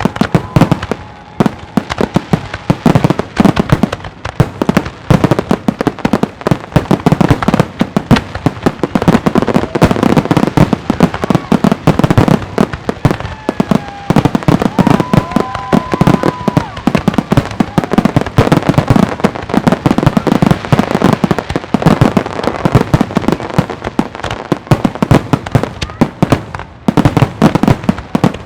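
Aerial firework shells bursting in a rapid, unbroken barrage of bangs and crackles. A short whistle sounds about halfway through.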